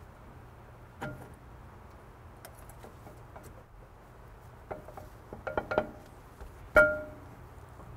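Metal brake pad backing plates clinking against a Wilwood TX6R six-piston caliper as the pads are slid into place. There are scattered short, ringing metallic clinks: one about a second in, a quick run of them a little past halfway, and the loudest, ringing clink near the end.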